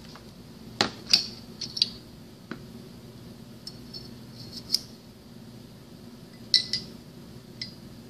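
Steel parts of a single-spring mechanical seal clinking against each other as they are handled, with the coil spring being fitted onto the seal sleeve. About ten sharp metallic clinks with a short ring, irregularly spaced; the loudest comes about a second in.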